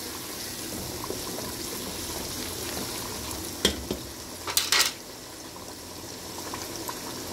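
A pot of nihari simmering and bubbling while a wooden spoon stirs through the meat and gravy. Sharp knocks of the spoon against the pot come about halfway through.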